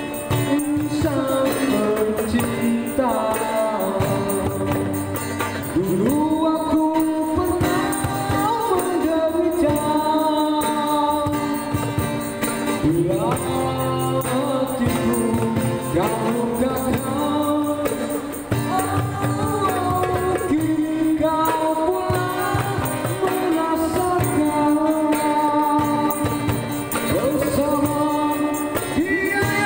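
Live amplified male singing through a handheld microphone, accompanied by acoustic guitar and a cajon: a Malay pop song performed by buskers.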